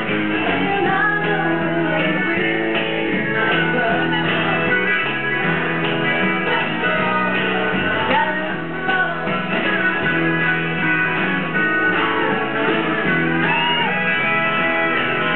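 Live country song: a woman sings over strummed acoustic guitar and electric bass.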